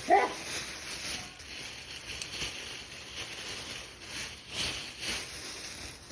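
Faint rustling and handling noise from hands working at locked handcuffs, opening with a short, sharp sound that sweeps quickly in pitch, the loudest moment in the stretch.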